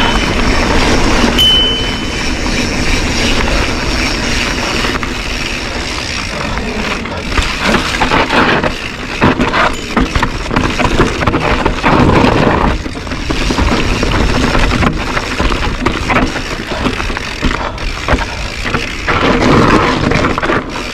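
Mountain bike riding down a rocky dirt singletrack: wind rushing over the camera's microphone, tyres crunching over dirt and stones, and the bike rattling over bumps. A brief high squeak sounds about a second and a half in.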